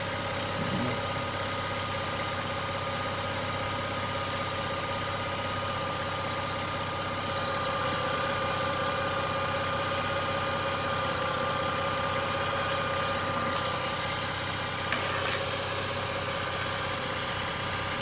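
Mazda RX-8's twin-rotor Renesis rotary engine idling steadily, heard up close in the engine bay, with a steady whine over the idle.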